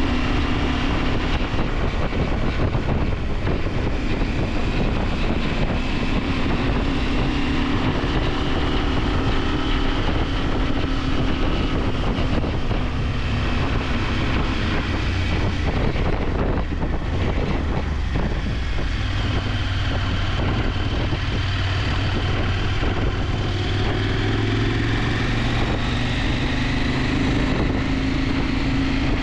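KTM 890 Adventure's parallel-twin engine running under way, its note rising and falling with road speed, with wind rushing over the camera microphone.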